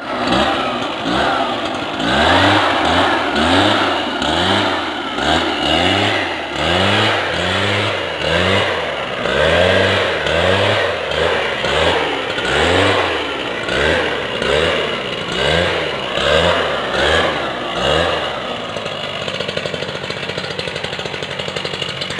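Small engine of a power sprayer pump running, its speed rising and falling in a steady rhythm about one and a half times a second, then settling to a steady speed near the end.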